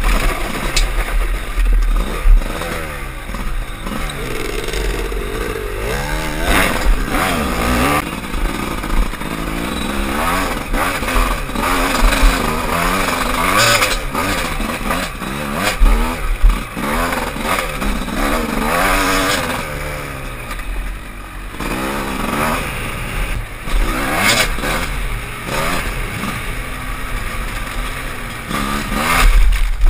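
Dirt bike engine, heard from the rider's own bike, revving up and down over and over as it is ridden along a rough, muddy trail, with knocks and clatter from the bike over the bumps.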